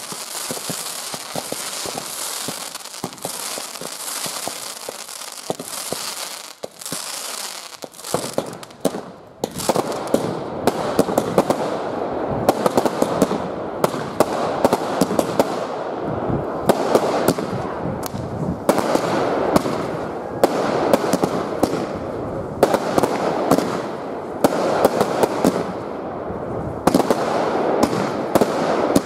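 Fireworks: hissing fountains and comets for the first several seconds, then from about eight seconds in a dense, continuous crackling with rapid sharp pops.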